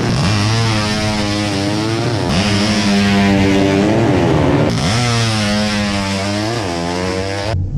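Four-stroke drag-racing underbone motorcycles of the horizontal-engine 'sleep engine' class at full throttle. The engine pitch climbs and then drops sharply at each upshift, again and again, and the sound cuts off abruptly near the end.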